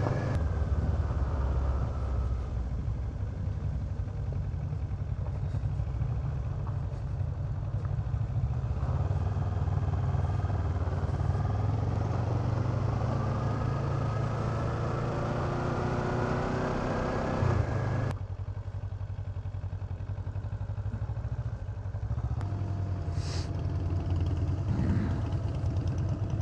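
Kawasaki Ninja 650R's parallel-twin engine running under way on a gravel road, with a steady rush of road noise. Through the middle the engine pitch rises steadily as the bike accelerates, then falls off suddenly about two thirds of the way in as the throttle closes. The engine picks up again, slower, near the end.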